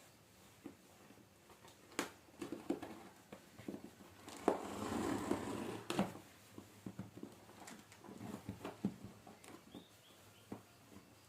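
Packaging being handled while unboxing a laptop replacement keyboard: scattered light clicks and taps, with a rustle lasting about a second and a half starting around four and a half seconds in.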